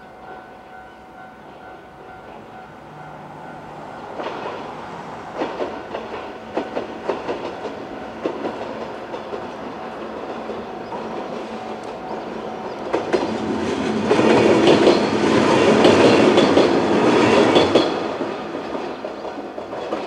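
Level-crossing warning alarm sounding steadily while a JR 103 series two-car electric train approaches and passes. Its wheels clatter over the rail joints from about four seconds in, and the train is loudest between about 14 and 18 seconds in as it goes by.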